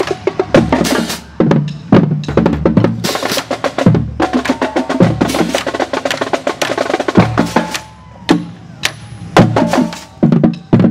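High school marching band drumline playing a cadence on the march: snare drums, tenor drums and bass drums, fast sharp strokes over low booms, with short breaks in the beat about eight seconds in and near the end.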